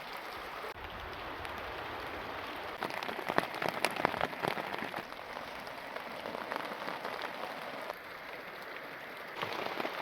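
Heavy rain falling, with drops pattering. The patter grows louder and denser about three seconds in, eases a couple of seconds later, and picks up again near the end.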